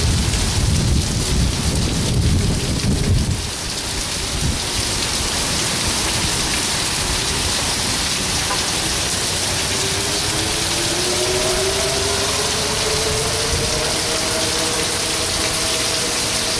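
Heavy thunderstorm rain pouring steadily, with a low rumble of thunder over the first few seconds that dies away about three and a half seconds in.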